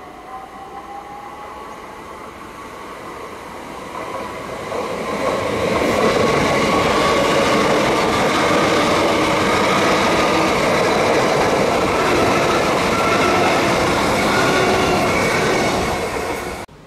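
Class 387 Electrostar electric multiple unit approaching and running past close by. Wheel and rail noise builds over the first five seconds to a steady loud rush, with high whining tones running through it. The sound cuts off suddenly near the end.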